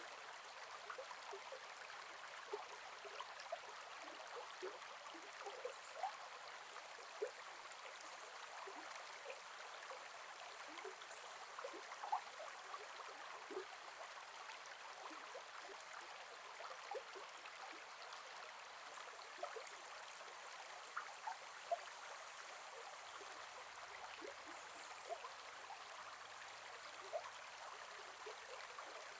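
Gentle forest river flowing: a steady rush of water with many small bubbling plops and gurgles scattered through it.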